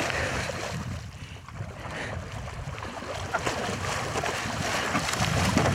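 A person wading fast through shallow lake water, feet splashing with each stride, with wind buffeting the microphone.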